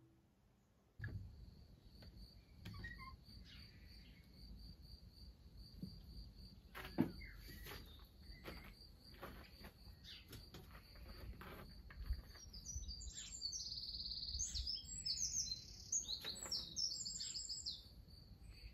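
Faint garden ambience: a steady pulsing insect trill, with small birds chirping more and more toward the end. A few soft knocks, the sharpest about seven seconds in.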